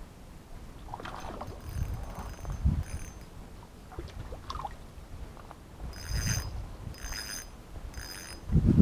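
Splashing in shallow water as a hooked chub is drawn in to the bank. Near the end come three short metallic jingling rattles, about a second apart.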